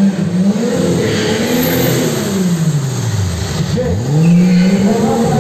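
Car engine revving hard as the car drifts, its pitch swinging up and down, falling sharply about three and a half seconds in, then climbing again.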